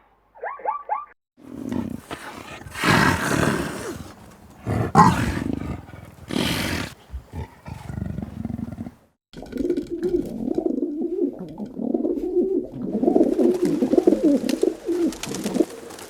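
Animal calls: a few short chirps, then several seconds of loud, harsh, roar-like calls; after a brief break, a low, wavering call that runs on to the end.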